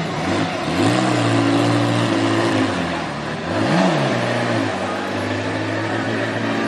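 Bugatti Type 35's straight-eight engine running at steady revs, with a quick blip up and back down about four seconds in.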